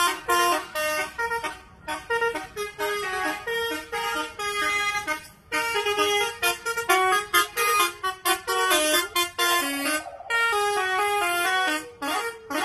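A truck's telolet horn playing a quick, melody-like run of stepped notes, with short breaks between phrases.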